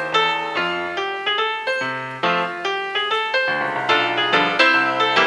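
Background music: a piano playing a quick run of notes, about three a second.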